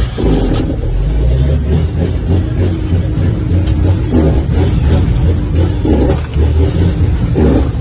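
Heavy truck's diesel engine running under way, heard from inside the cab as a steady low drone.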